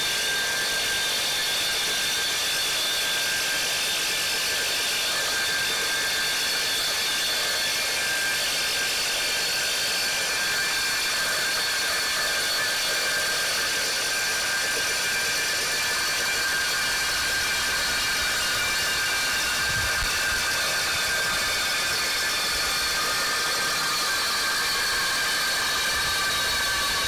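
Reciprocating saw with a Milwaukee Torch Nitrus Carbide blade cutting steadily through a steel guardrail post under downward hand pressure: a loud, even metal-cutting whine whose pitch sags slightly near the end.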